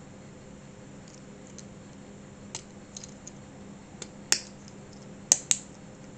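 Small plastic clutch plates and hub of a scale model clicking and tapping as fingers handle and press them together. The clicks are scattered and sharp, with a few louder ones in the second half.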